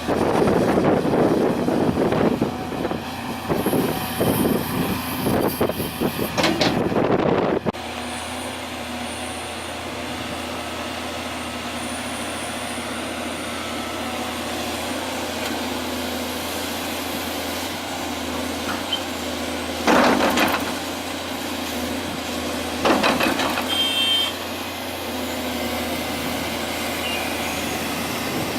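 Heavy diesel earthmoving machinery at work: a Cat 336D long-reach excavator with articulated dump trucks. A loud, rough stretch cuts off abruptly about eight seconds in, then a steady engine drone runs on with two short louder surges and a brief beep.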